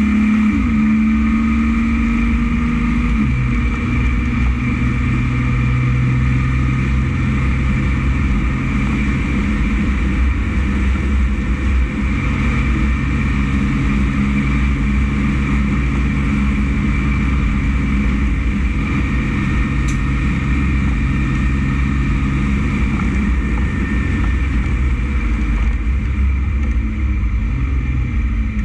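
Dump truck's diesel engine running steadily under way; its pitch drops once about three seconds in, then holds.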